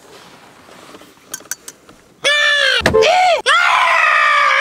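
A man screaming in a high, strained voice, starting about two seconds in and breaking off briefly twice. Before it there is only a low hiss with a few light clicks.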